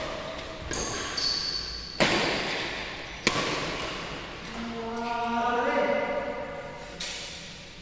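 Badminton rackets hitting a shuttlecock in a rally, four sharp strikes roughly a second or more apart, echoing in a large hall. Players call out between the third and fourth hit.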